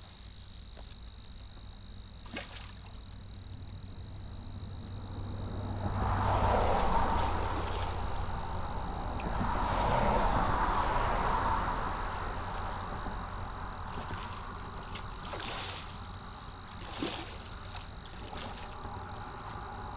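A steady, high-pitched animal trill runs throughout, with two swells of rushing noise about six and ten seconds in.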